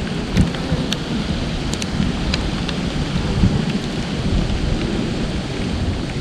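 Steady rain with a low rumble beneath it. Single drops tick sharply a few times, close by, over the rain.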